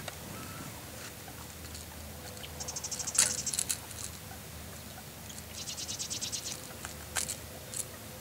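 A freshly caught bass being unhooked by hand from a crankbait: two bursts of quick rattling clicks, about a second each, and a few sharp single clicks as the fish and lure are handled.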